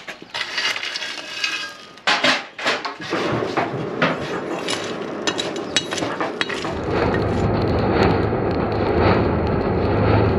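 Sharp clinks and knocks of metal tools in a blacksmith shop. A steady rushing noise comes in about three seconds in and grows louder and deeper about seven seconds in.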